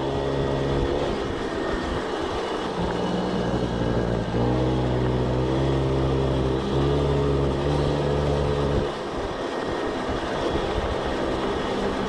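Peugeot 103 moped's 50 cc two-stroke engine running under way, its pitch stepping up and down with the throttle. About nine seconds in the engine note drops away into a rougher, unpitched rumble.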